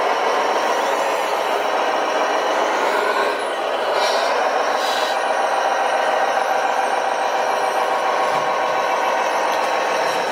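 Tamiya Globe Liner RC truck's sound unit playing a truck diesel engine running steadily as the truck drives slowly. A short hiss about four seconds in.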